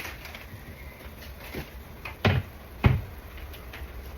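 Knocks of kitchen containers being handled, with two louder knocks a little after two seconds and just before three seconds, as spice jars and boxes are taken out and set down.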